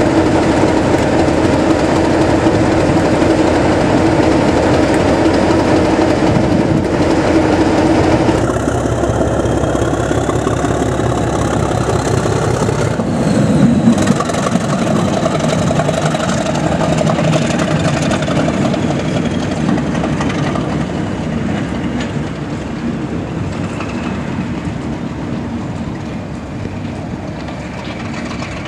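English Electric Class 37 diesel-electric locomotive's engine running as it moves through the yard. The engine note changes abruptly about eight seconds in, and a faint high whine rises and then falls. The sound slowly fades toward the end as the locomotive draws away.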